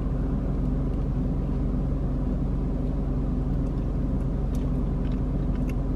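Car engine idling, heard from inside the cabin as a steady low hum, with a couple of faint clicks near the end.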